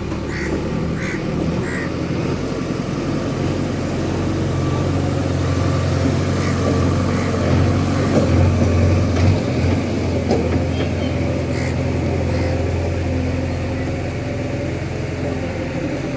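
Heavy diesel engine of road-works machinery running steadily, swelling a little about halfway through, with a few short squeaks in the first couple of seconds.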